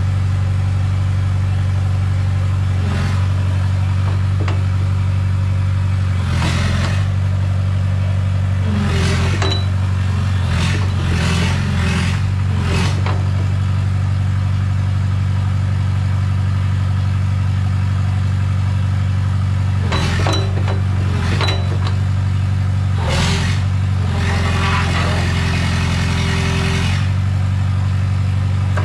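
A steady, low mechanical hum at a constant pitch, with short bursts of clatter several times and a longer spell of clatter near the end.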